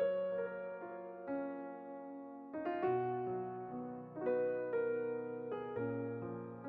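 Background piano music: slow notes and chords, each struck and fading, changing about every second.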